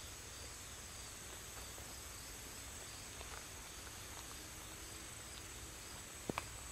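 Insects chirring steadily at a high pitch in summer woods, with two sharp clicks in quick succession near the end.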